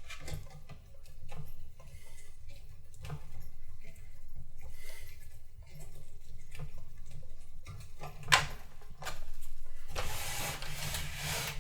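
Handling sounds from work on a desktop PC's floppy drive and case: scattered light clicks and knocks over a low rumble, a sharp click about eight seconds in, and a longer scraping rustle near the end.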